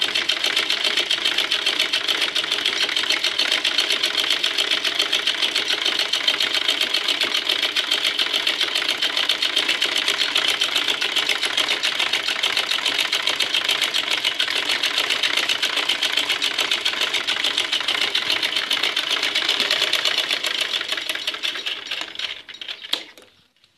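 Domestic sewing machine running steadily, a fast even rattle of needle strokes as it stitches through layered fabric and buckram. Near the end it slows and stops.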